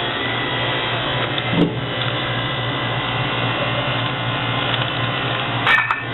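Steady mechanical hum of a store's refrigerated drinks cooler running, with a short knock about one and a half seconds in and a sharp click near the end as bottles are handled.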